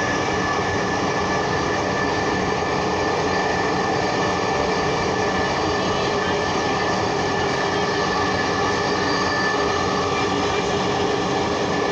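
Dhaka Metro Rail electric train running between stations, heard inside the carriage: steady rolling noise with constant whining tones.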